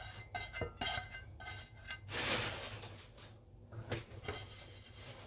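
Kitchen utensils and dishes clinking and scraping a few times, then a short hiss a little after two seconds in and a single knock about four seconds in.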